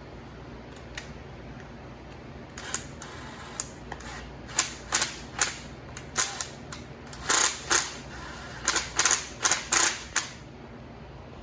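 An irregular run of sharp clicks and taps from small parts being handled, starting a couple of seconds in and stopping near the end.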